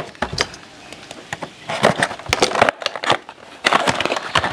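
Cardboard box being handled and its end flap pulled open: scraping, rustling and clicks in two bunches, about two seconds in and again near the end.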